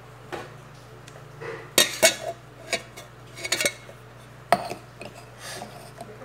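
Metal cups and an aluminium jug knocking and clinking on a stainless-steel counter: a handful of sharp clanks with a short ring, the loudest about two seconds in and again about four and a half seconds in.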